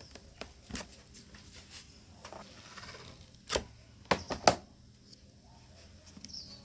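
A few sharp taps and clicks of handling, loudest as a quick cluster of knocks around the middle, with faint bird chirps behind.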